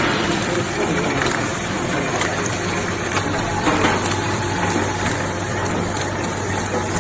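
Automatic fold-wrapping machine for bouillon cubes running: a steady mechanical clatter over a low hum, with a few faint clicks.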